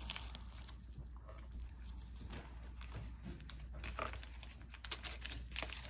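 Faint rustling and crinkling of paper supplement packets being handled, a few soft rustles over a low steady hum.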